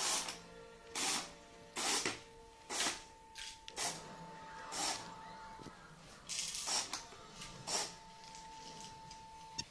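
Small electric LEGO train motor whining steadily while the locomotive moves along the track, broken by short loud hissing bursts about once a second.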